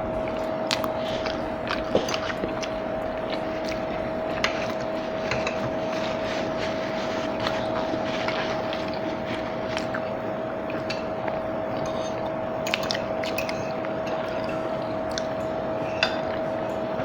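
Close-up chewing and biting of food, with wet mouth sounds and scattered short clicks, over a steady background hum.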